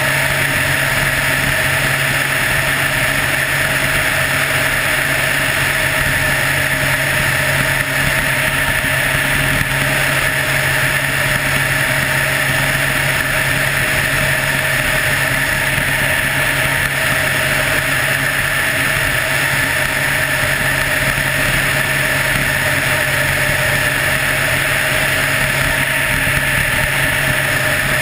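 Helicopter in flight: the steady, unbroken drone of its engine and rotor, holding a constant pitch and level.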